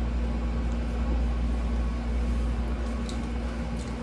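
A steady low mechanical hum with a constant tone, with a few faint light clicks in the last second.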